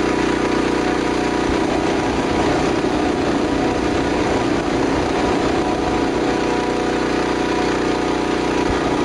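Recorded sound effect of an engine running steadily at an even idle-like speed.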